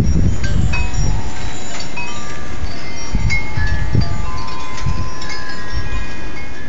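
Strong wind through a forest making a low, gusting rumble, the sound likened to a freight train in the trees. Over it, wind chimes ring with many scattered clear tones.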